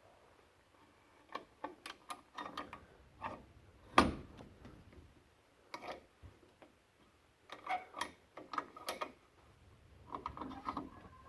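Metal clamps and tools clicking and clanking as they are handled and fitted around a hub, in irregular clusters, with one sharp metal knock about four seconds in.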